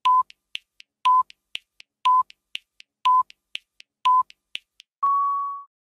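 Countdown timer sound effect: a short beep once a second, five times, with three quieter ticks between beeps, then one longer, slightly higher beep that fades out.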